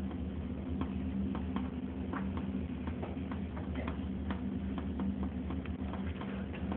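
Irregular light clicks, a few each second, over a steady low hum.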